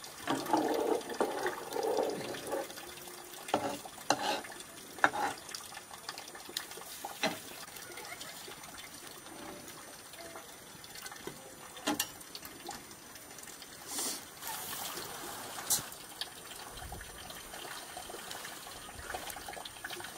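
A metal pot lid clatters onto a cooking pot over the first couple of seconds. Scattered sharp knocks and crackles follow as firewood is pushed into a wood-fired earthen stove, over a faint steady hiss.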